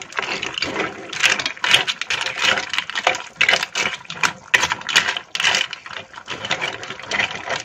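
Mussel and clam shells clattering and scraping against each other and the pot as a spoon stirs seafood linguine in simmering broth: a rapid, irregular rattle of clicks.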